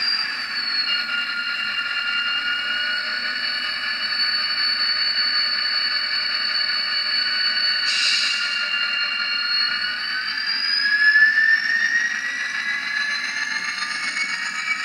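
Factory LokSound sound decoder in an Atlas N scale GP30 model playing its dynamic brake sound through the model's small speaker: a steady whine of several tones that dips slightly in pitch about a second in and climbs again from about ten seconds in. A short hiss sounds about eight seconds in.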